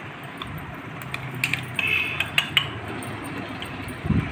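A metal spoon clinking and scraping against a small steel grinder jar and a bowl as ground biscuit powder is knocked out, with scattered sharp clicks, a short ringing clink about two seconds in and a dull knock near the end.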